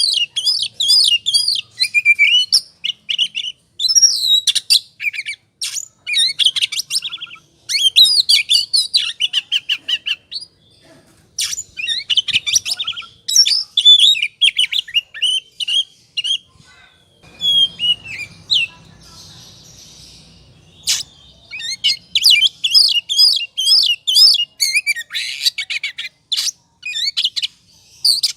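Oriental magpie-robin (kacer) singing its agitated 'ngobra' song: loud, fast runs of varied chirps, whistles and harsh notes in quick bursts, broken by a few seconds' pause in the middle before it picks up again. This is the worked-up, aggressive singing that keepers play to fire up other magpie-robins.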